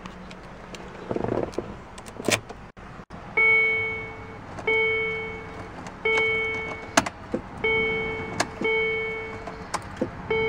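A 2004 Land Rover Discovery's dashboard warning chime sounds about six times, one chime roughly every second and a bit, each note fading out. It starts a few seconds in, after some clicks and rustling in the cab, and a few sharp clicks fall between the later chimes.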